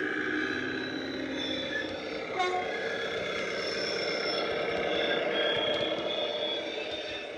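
Sound decoder in a model GWR parcels railcar playing a 1930s German railcar engine sound through its small speaker as the model runs, with its wheels running on the track. The sound grows louder as the model passes close by, and there is a sharp click about two and a half seconds in.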